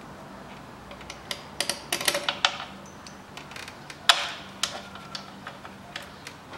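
Scattered metallic clicks and taps of bolts and a tool as the throttle body is fastened back onto the intake manifold, with a quick cluster about two seconds in and the sharpest click about four seconds in.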